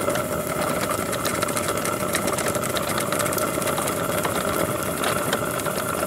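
Small model steam engine running steadily with a fast, even mechanical clatter, its crank and belt pulley turning. It is still short of full steam pressure.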